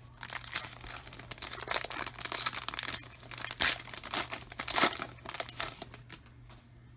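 A trading-card pack's wrapper being torn open and crinkled by hand, a dense crackling that stops about six seconds in.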